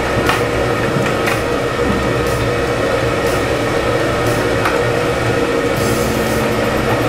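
Background music with a steady beat, about one beat a second, over sustained chord tones that change twice.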